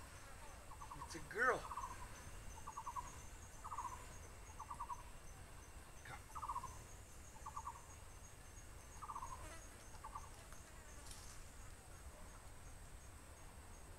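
A short animal call near 1 kHz repeating about once a second, alternating a quick rattling note with a smoother falling note, over a faint high insect chirping pulsing evenly. A single louder rising squeak comes about one and a half seconds in.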